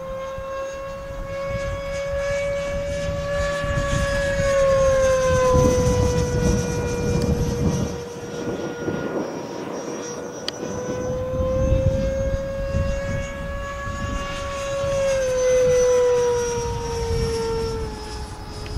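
FMS Futura electric ducted-fan model jet flying overhead, its fan giving a steady high whine that swells and fades as it passes. The pitch drops a few seconds in and again near the end.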